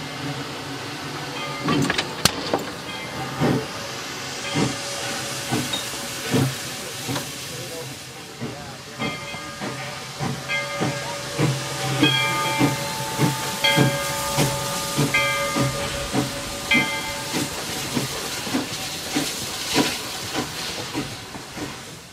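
Virginia & Truckee No. 25 steam locomotive hissing steam, with a short knock about once a second. Short ringing tones come and go in the middle.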